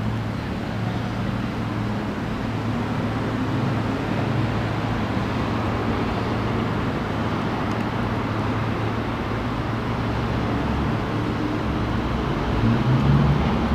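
Steady outdoor city ambience: a wash of traffic noise with a low steady hum, swelling slightly near the end.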